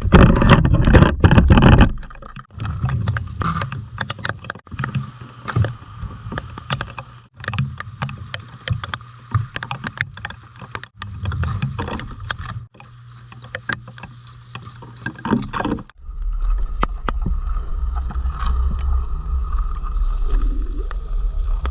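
Rain and wind rumbling on a phone microphone outdoors, with many small clicks and knocks. It is loudest in the first two seconds and steadier again after about two-thirds of the way through. The sound cuts out abruptly for a moment several times.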